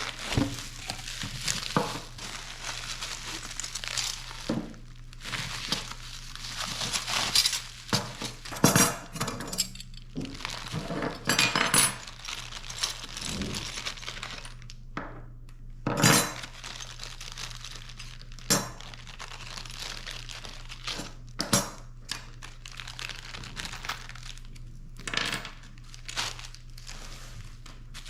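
Irregular handling noises: clinks, knocks and rustling of small hard objects being picked up, moved and set down, over a faint steady low hum.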